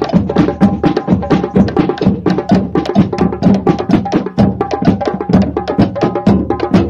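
A group of drummers beating frame drums and a bass drum together, with many sharp strikes a second in a busy, continuous rhythm.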